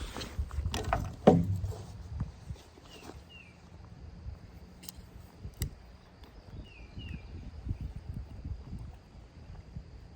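Rustling and sharp clicks of a hiker handling her day pack and water bottle, loudest about a second in, with more clicks around the middle. A bird gives short falling chirps in pairs, about three seconds in and again near seven seconds.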